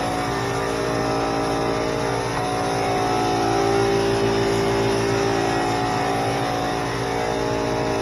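A small 21-gallon air compressor running with a steady motor drone, under the hiss of air from a SprayIT R500 LVLP gravity-feed spray gun spraying paint.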